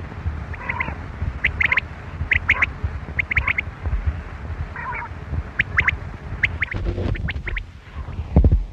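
Quail calling: short, sharp high notes in quick clusters of two to four, repeated roughly every second, over a steady low rumble.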